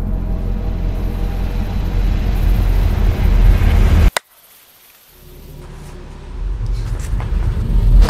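Deep rumbling sound effect swelling louder, cut off abruptly by a sharp crack about four seconds in. After a near-quiet second the rumble fades back in and builds again toward another sharp hit at the end.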